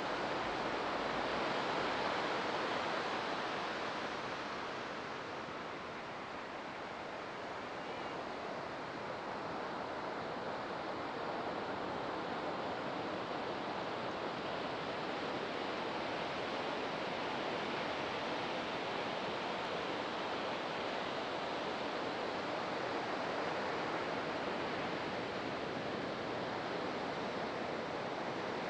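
Pacific surf breaking and washing onto a sandy beach: a steady rush of waves that eases a little about six seconds in and builds again.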